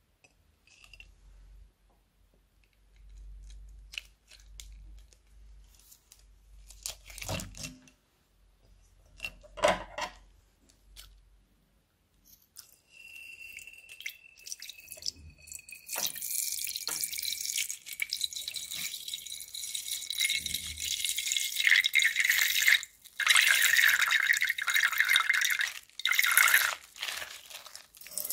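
Small crinkles and clicks of a plastic water squishy being handled. About halfway through, a tap starts running, and water streams into the squishy and splashes in the sink, loud with a few short breaks.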